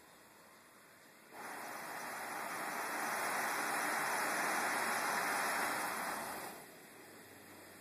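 Shmel-1 petrol primus stove burner running with a steady rushing roar that comes in suddenly about a second in, grows louder, then falls back to a faint hiss near the end.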